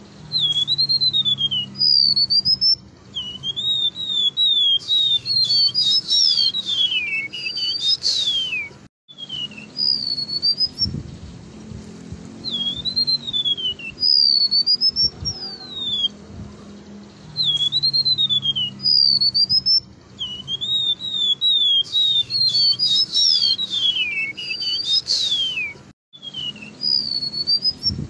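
Golden-bellied gerygone (remetuk laut) singing: high, thin whistled notes that slide down and arch up in pitch, in repeated phrases with short pauses between them.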